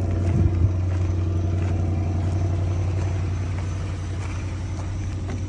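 2008 Range Rover's engine idling steadily, with a few light clicks about half a second in.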